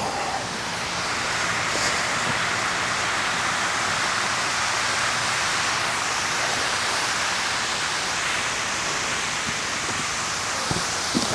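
Steady rush of falling water from a large fountain's cascades.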